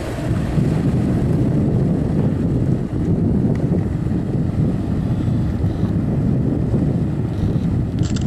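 Steady low wind rumble on the microphone over the run of a motorboat and water rushing past its hull.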